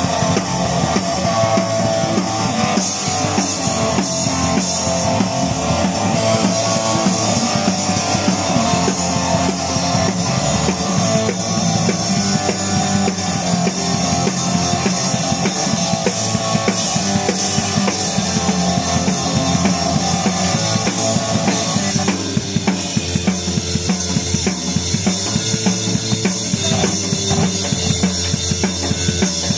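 Punk rock band playing live: loud drum kit, bass and electric guitar. About three-quarters of the way through the guitar drops back, leaving mainly drums and bass.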